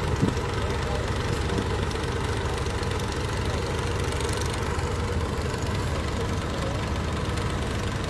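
Kubota PRO688Q rice combine harvester's diesel engine running steadily at close range, an even low drone without change.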